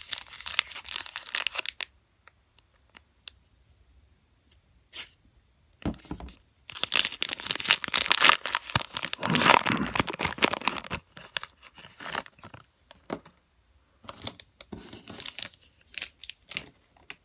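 Foil wrapper of a trading-card pack being torn open by hand, crinkling as it goes. A short burst of tearing at the start, a longer, louder stretch from about six to eleven seconds in, then scattered small crinkles near the end.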